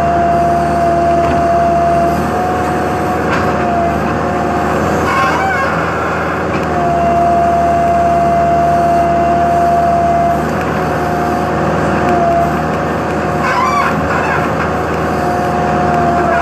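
Heavy machine's diesel engine running steadily, with a high steady whine that eases off twice and comes back. Two short squeaky sounds come about a third of the way in and again near the end.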